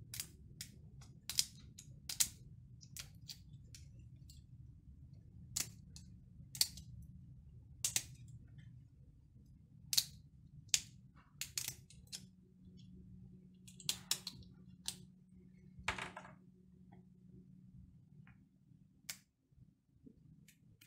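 Small clippers snipping the support structures off a cured resin 3D-printed part: a string of sharp snaps at irregular intervals, about twenty in all, with one longer crackle about three-quarters of the way through, over a low steady hum.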